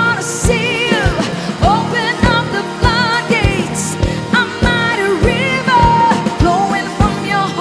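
Live worship band music: a steady kick-drum beat under sustained chords, with a wavering, bending melodic lead line and two cymbal hits, one near the start and one about halfway through.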